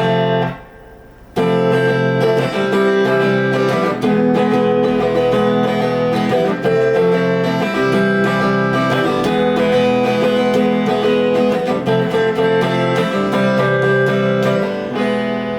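Guitar being strummed, recorded through a camera's built-in microphone: one chord, a brief pause of under a second, then steady rhythmic chord strumming.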